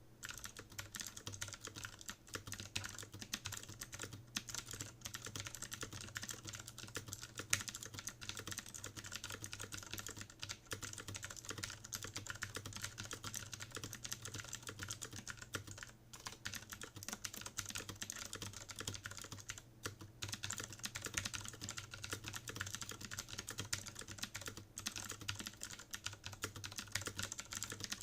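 Fast continuous typing on a CM Storm QuickFire Rapid mechanical keyboard with Cherry MX Milk switches and PBT keycaps, a dense run of key clacks at about 85 words per minute. The typing breaks off for a moment several times.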